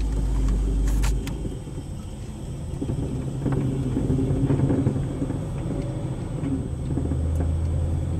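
Pontiac G8 GT's 6.0-litre V8 with Kooks 1-7/8-inch long-tube headers and an X-pipe, idling roughly at a stop. The low exhaust drone is uneven, dropping away about a second in and coming back strongly near the end.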